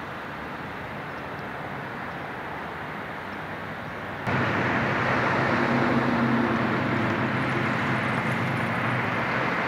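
Steady outdoor background noise of distant traffic, then from about four seconds in, louder street traffic with vehicle engines running at a steady low hum.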